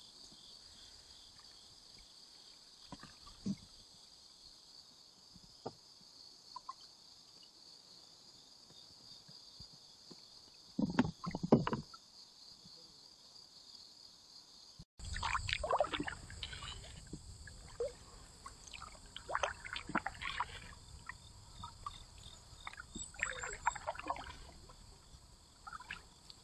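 Canoe paddles dipping and splashing in calm water. The strokes are sparse at first, with a cluster of louder splashes about eleven seconds in, then come often from about halfway, over a low rumble.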